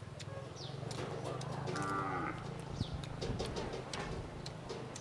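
Cattle lowing in the background, one call about two seconds in and a shorter one a little after three seconds, over a steady low hum, with a few short high falling bird chirps.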